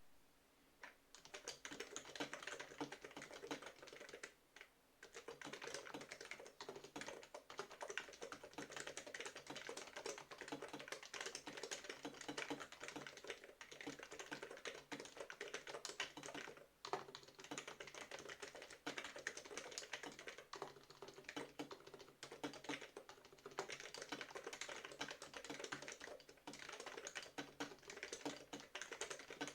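Typing on a BTC 5139 keyboard with BTC dome-with-slider switches: a fast, continuous run of keystrokes starting about a second in, broken by a few brief pauses.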